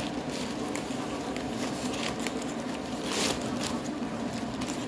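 Paper sandwich wrapper crinkling and rustling as it is unwrapped by hand, with a louder rustle about three seconds in, over a steady low hum.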